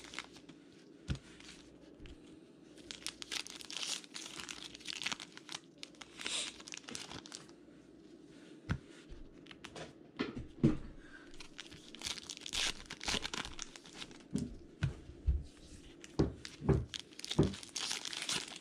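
Paper baseball card pack wrappers (Topps Heritage) being torn open and crinkled by hand, in repeated rustling bursts. In the second half there are a few short, dull knocks.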